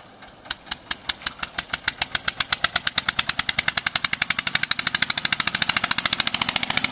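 Eicher 241 tractor's single-cylinder diesel engine pulling hard up a sandy slope at full throttle. Its exhaust beats start slow and come faster and louder as it climbs under load.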